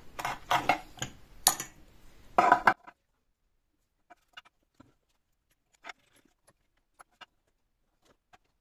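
Metal parts clinking and knocking on a metal drill press table as they are picked up and set down, a quick run of sharp clinks for about the first three seconds, then only a few faint taps.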